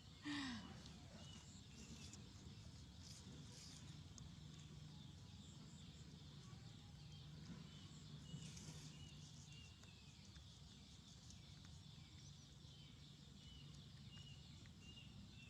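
Near silence: faint outdoor ambience with a low steady hum and soft, high, short chirps now and then, after a brief falling call at the very start.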